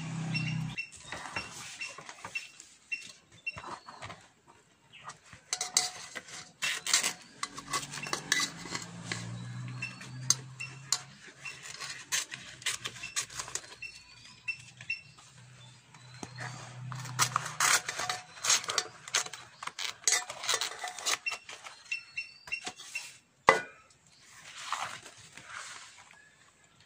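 Scissors snipping through a banana leaf around an aluminium pot lid, with many short sharp clicks and clinks of metal.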